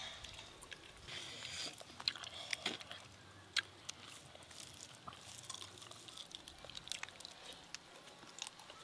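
Quiet eating by hand: chewing and lip smacks, with scattered small clicks and rustles of fingers picking through rice and fish on a banana leaf.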